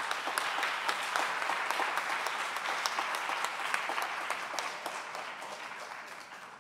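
Audience applauding, many hands clapping at once after a talk; the applause holds for a few seconds and then gradually dies away near the end.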